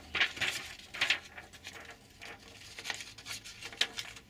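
Small plastic model-kit parts being handled: a scattered run of light clicks and rustles, the loudest near the start and about a second in.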